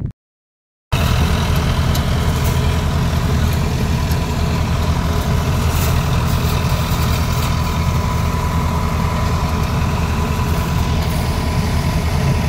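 Motor-driven paddy thresher running steadily while rice stalks are fed in: a loud, even engine drone with the threshing drum's whirring and a faint steady high whine. The sound cuts in abruptly about a second in, after a moment of silence.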